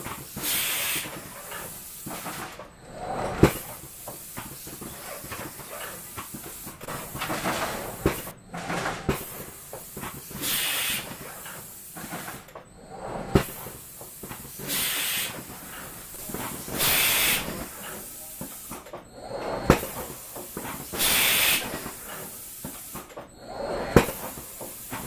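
Automated assembly machine cycling. Repeated short hisses of compressed air exhaust from its pneumatic cylinders and valves, over a steady machine hum. Four sharp metallic knocks, spread several seconds apart, come as tooling strikes home.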